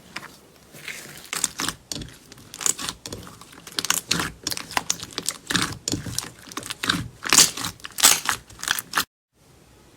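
Slime being squeezed and poked by hand, giving a rapid, irregular run of crackling pops and clicks. It cuts off abruptly about a second before the end, then fainter handling resumes.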